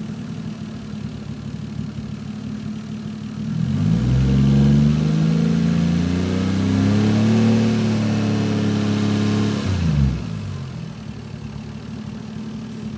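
Toyota 1JZ VVT-i inline-six idling, then revved up about a third of the way in and held at raised revs for about six seconds before dropping back to idle.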